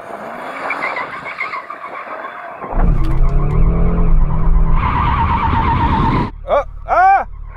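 Audi RS3's 2.5-litre turbocharged five-cylinder at high revs while its tyres spin and squeal, warming them up, with the car not fully under control. It grows much louder about three seconds in and cuts off near the end, followed by two short revs that rise and fall.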